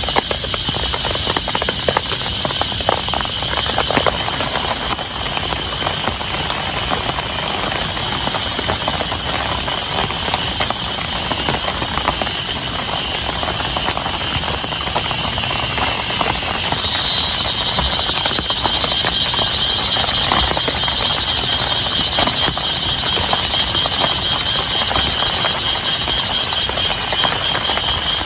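Heavy rain falling steadily, a dense patter of drops. A steady high-pitched buzz runs alongside and changes about seventeen seconds in, when a higher tone joins it.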